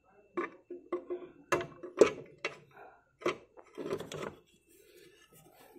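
Aluminium CVT cover of a Yamaha NMAX scooter being knocked and pressed onto the engine case by hand: about seven sharp knocks and clunks over four seconds, the loudest about two seconds in.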